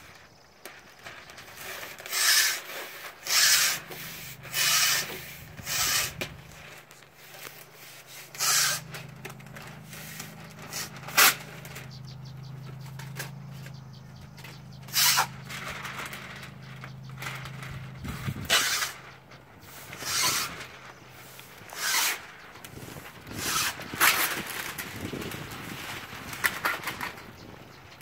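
Masking paper and tape pulled off a 3M Hand-Masker and pressed along a garage door's frame: a string of short rasping, rustling strokes, roughly one every one to two seconds. A steady low hum runs underneath through the middle stretch.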